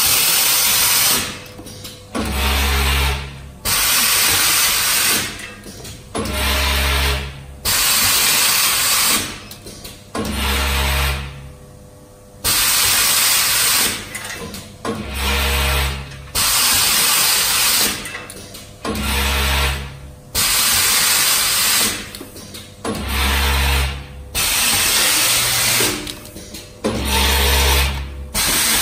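Automatic twisted-brush handle insertion machine running through its cycle: a loud mechanical whirr with a deep hum lasting a second or so, repeating about every two seconds with short pauses between.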